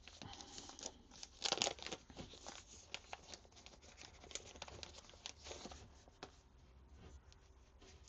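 Hands handling camera accessories and their plastic packaging: irregular rustling and crinkling with small clicks, busiest about one and a half seconds in.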